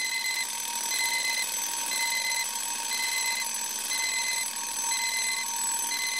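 Electronic alarm clock beeping, a high beep about once a second, over a steady hiss.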